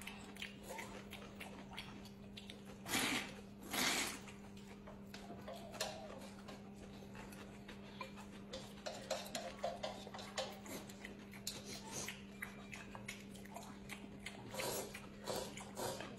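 Noodles being slurped and chewed, with loud slurps about three and four seconds in and again near the end, and small wet clicks of chewing between them. A steady low hum runs underneath.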